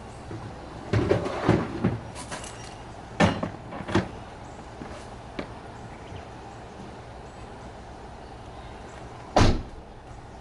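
A door being handled: a cluster of knocks and clunks, two sharper knocks a couple of seconds later, then one heavy slam about nine seconds in.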